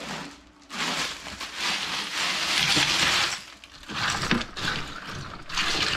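Ice cubes poured from a plastic bag into a tub of cucumbers in water, clattering for about three seconds, followed by shorter bursts of ice and water being stirred by hand.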